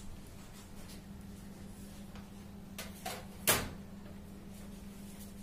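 Quiet room tone with a steady low hum, two faint clicks, then one sharp knock about three and a half seconds in.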